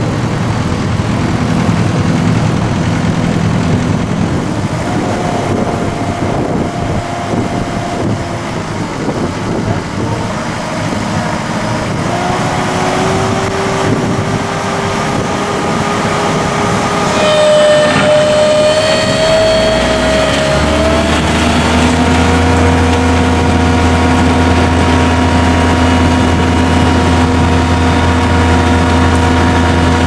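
Diesel engine and drive of a Loglogic Softrak tracked harvester running steadily as it drives through tall grass. Partway through, whines shift in pitch over several seconds; from about twenty seconds in the machine settles into a steady low hum with a few fixed tones.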